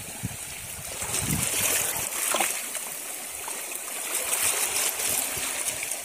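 Shallow water sloshing and trickling as someone wades and pushes a rake through it, with a few soft knocks.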